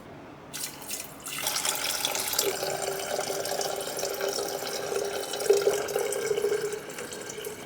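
Water running from a tap into a container, starting about half a second in and getting heavier a second later, with a steady hollow tone from the vessel as it fills.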